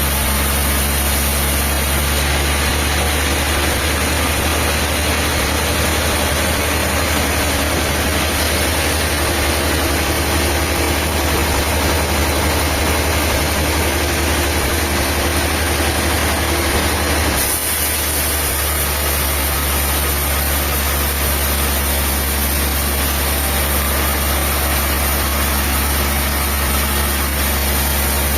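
Diesel engine of sawmill machinery running steadily at a constant speed, with a deep, even hum. The sound dips briefly about two-thirds of the way through, then carries on unchanged.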